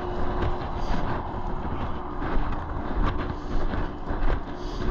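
Highway traffic passing at speed: a steady rush of tyres and engines with a low hum.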